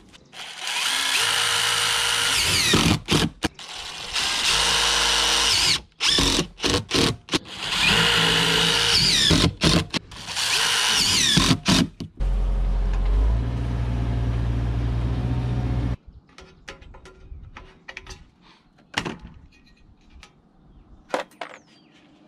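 DeWalt cordless driver running in three long bursts, driving screws through metal drip-edge trim into a wooden fascia. After that comes a low steady rumble for a few seconds, then scattered light clicks and knocks.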